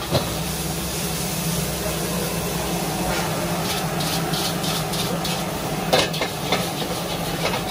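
Stir-frying in a wok over a high-flame gas burner: steady sizzling over the burner's roar, with a metal ladle scraping and clanking against the wok several times in the second half.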